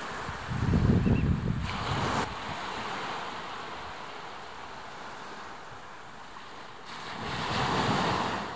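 Small waves washing on the shore, with wind gusting across the microphone; the gusts swell about a second in and again near the end.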